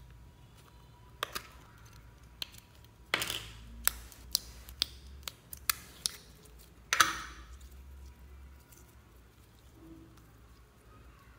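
A small clear plastic cup of slime being opened and handled: a string of sharp plastic clicks and crackles over the first seven seconds, the loudest about seven seconds in.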